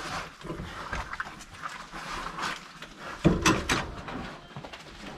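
Mangalitsa pig rooting and feeding in produce and shredded-paper bedding: grunts mixed with irregular crunching and rustling, loudest a little past three seconds in.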